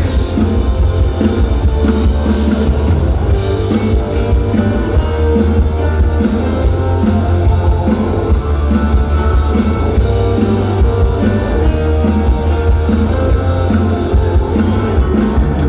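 Live rock band playing an instrumental passage: electric guitars, bass and drum kit, with cymbals struck on a steady beat from about four seconds in.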